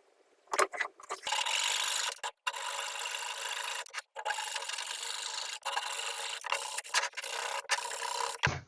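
Wood being abraded by hand in long strokes, with short breaks between them, after a few light knocks in the first second.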